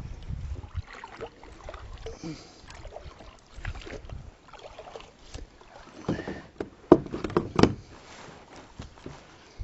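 Kayak being manoeuvred on the water: paddle splashes and knocks against the hull, with a cluster of louder knocks and splashes about six to eight seconds in.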